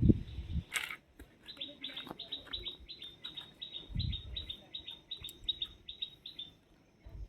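A small bird chirping a rapid series of short, high, falling notes, about four a second, for about five seconds. A sharp click comes about a second in, and a few low thumps sound near the start and in the middle.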